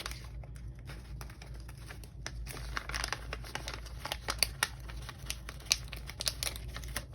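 Paper sticker sheets crinkling and rustling as stickers are peeled and placed on a planner page: a string of small irregular crackles and ticks over a low steady hum.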